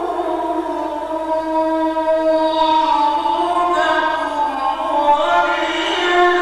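A male reciter's voice chanting Quran recitation in the melodic mujawwad style, holding long drawn-out notes that glide slowly up and down in pitch.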